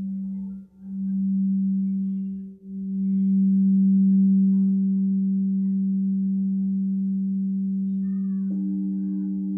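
Frosted crystal singing bowl rimmed with a mallet, holding one steady low hum that briefly drops out twice in the first three seconds. Near the end a second singing bowl is struck and rings in over it with a higher, wavering tone.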